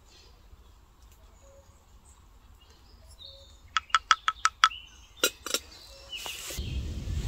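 Wooden spoon tapped quickly about six times on the rim of a wooden kuksa cup, then two heavier knocks as it is laid on a metal pot lid. A louder rustling noise comes in near the end, with faint bird chirps behind.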